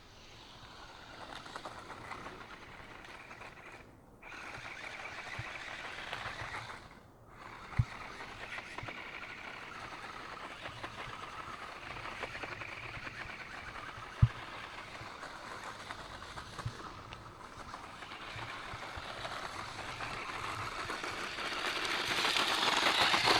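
DEERC DE36W 1/16-scale RC truck's small electric motor and gears whirring as it drives, cutting out briefly twice as the throttle is let off, with two sharp knocks. The whir grows louder near the end.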